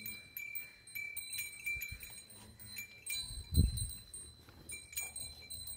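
Small metal bells tinkling and ringing, struck lightly again and again, with one low thud about three and a half seconds in.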